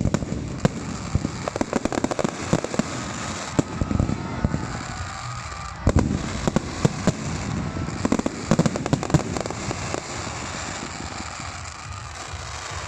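Fireworks display going off: a rapid, irregular string of sharp bangs and crackles that thins out after about ten seconds.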